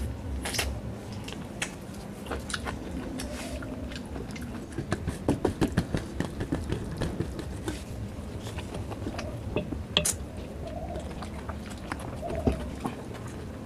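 Close-up eating sounds of a man eating rice and curry by hand: chewing and wet mouth smacks, with a run of quick clicks and squelches about five to seven seconds in as his fingers mix rice and gravy on a steel plate.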